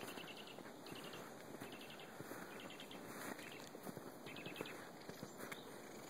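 Small birds calling from the trees: several short, rapid ticking trills, high in pitch, every second or so over a faint outdoor hiss.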